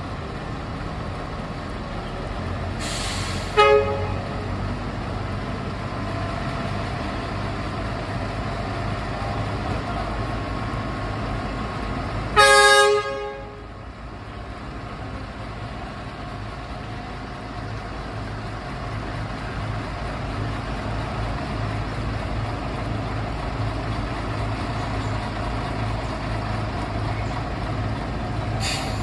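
Diesel locomotive sounding its horn twice over the steady running of its engine: a very short toot about three seconds in, just after a brief hiss, and a longer blast of about a second near the middle. Each blast is a chord of several tones.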